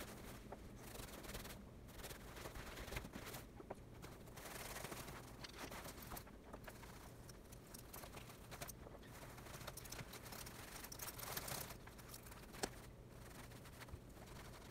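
Bare hands rubbing leather conditioner into a leather jacket: soft, irregular rubbing and rustling swishes over a faint steady low hum, with one sharp click near the end.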